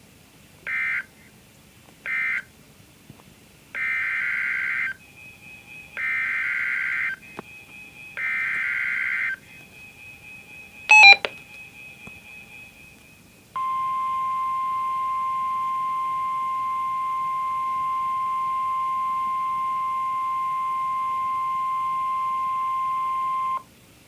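NOAA Weather Radio emergency alert tones: two short end-of-message data bursts, then three longer SAME header data bursts announcing the next warning, a sharp click, and the steady 1050 Hz warning alarm tone held for about ten seconds.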